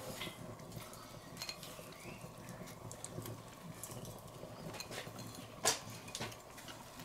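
Two people biting into soft-bun sandwiches and chewing, faint, with small wet clicks and one sharper click about five and a half seconds in.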